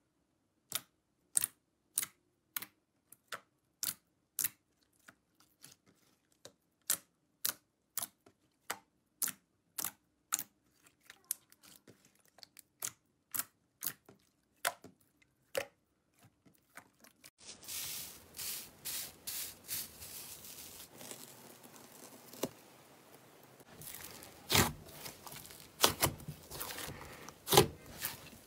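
Fingertips poking glossy slime, giving sharp little clicking pops about two a second. After a cut, a hissy background with irregular, louder wet pops as a large mass of white slime is kneaded in a glass bowl.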